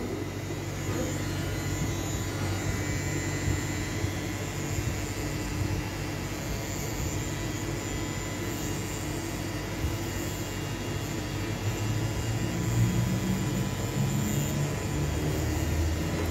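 Pen-style tattoo machine running with a steady mechanical hum as its needle works on the skin, a little louder near the end.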